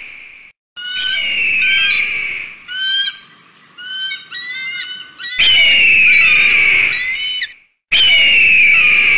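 Bird-of-prey calls: a quick series of short, shrill chirping whistles for the first few seconds, then, from about five seconds in, two long, loud screams that fall in pitch.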